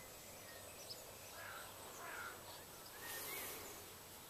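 Faint background ambience with a few small, distant bird chirps now and then, and a brief soft rustle about three seconds in.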